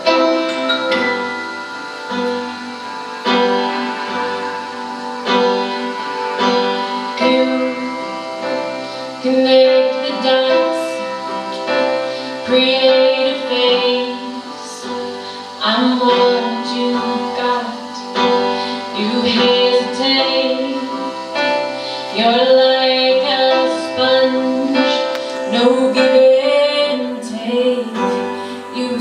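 Live music: a cello played with a bow and a keyboard, with a woman singing.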